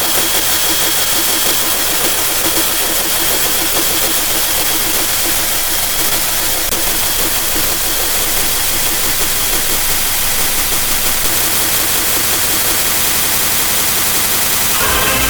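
Loud, steady static-like hiss, densest in the high range, with a faint high tone running through it.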